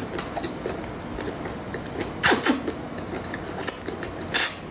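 Close-miked eating sounds of a large cooked cuttlefish being sucked, bitten and chewed: rubbery squeaks and creaks, with a few sudden louder wet sounds, the loudest a little over two seconds in and near the end.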